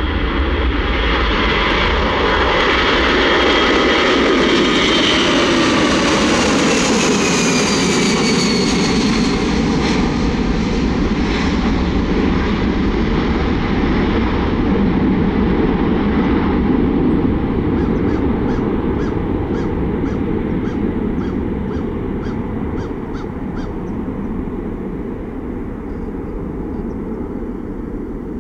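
Boeing C-17A Globemaster III's four Pratt & Whitney F117 turbofans at takeoff power as it lifts off and climbs away: a loud jet roar with whining tones that fall in pitch over the first ten seconds or so, then slowly fading.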